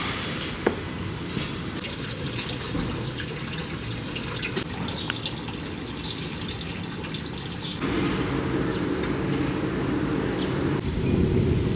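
Outdoor ambience in several short takes, the sound changing abruptly at each cut. In the middle take, water runs from a dragon-shaped spout into the stone basin of a shrine purification fountain.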